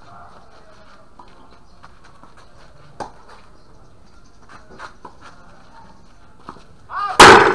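Tennis ball struck by a racket about three seconds in, with a few fainter hits and bounces after. Near the end comes a sudden very loud burst close to the microphone, opening with a brief voice-like sound.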